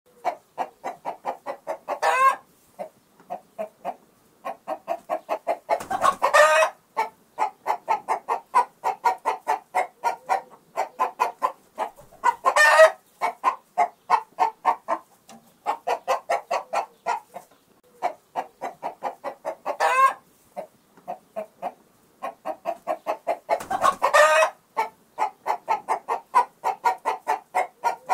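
Chickens clucking in quick runs of about four or five clucks a second, broken every few seconds by a louder squawk that rises in pitch, five in all.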